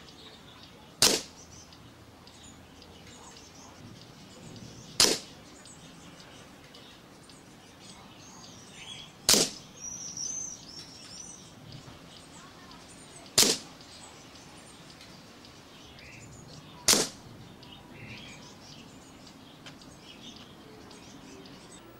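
Five single shots from an Air Arms S400 PCP air rifle, each a sharp crack, spaced about four seconds apart. Birds chirp faintly between the shots.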